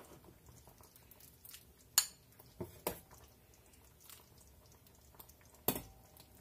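Metal ladle clinking against a stainless steel pan and a ceramic bowl while soup is ladled out. Several sharp clinks, the loudest about two seconds in; one near the end rings briefly.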